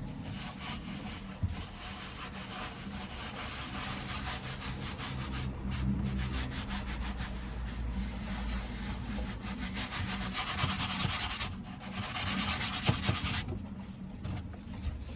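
Gold leaf being rubbed onto glued canvas: a continuous dry rubbing with short pauses and a longer stop near the end.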